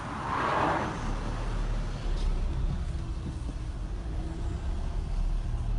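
Car engine and tyre rumble heard from inside the cabin as the car rolls slowly along, a steady low drone that strengthens about a second in. A brief rushing noise comes near the start.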